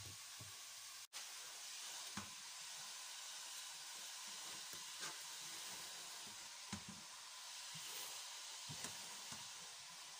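Onion and spices frying in oil in a steel pot, a faint steady sizzle, with a few light knocks as shredded cabbage is tipped in from a chopping board.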